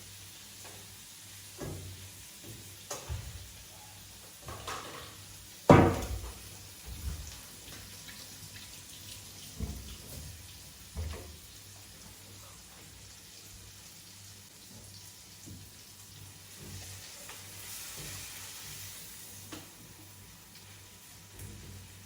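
Kitchen clatter: a series of separate knocks from pots and utensils being handled, the loudest about six seconds in, over a faint steady hum. A soft hiss rises near the end.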